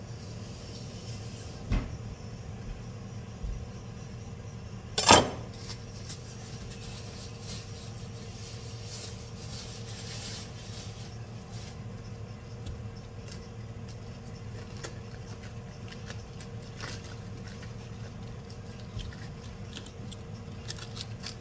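Clear plastic produce bag crinkling as a head of lettuce is handled over a wooden chopping board, above a steady low hum. One sharp knock about five seconds in is the loudest sound.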